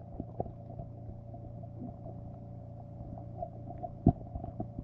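Underwater noise picked up by a camera lowered beneath the ice: a steady low hum with scattered faint knocks and clicks, and one sharp knock about four seconds in.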